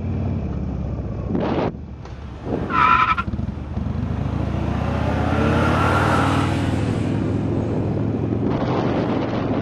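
Harley-Davidson XL 1200 Sportster's air-cooled V-twin engine running during a ride, with a brief high-pitched squeal about three seconds in. The engine then revs up as the bike accelerates, and wind buffets the microphone near the end.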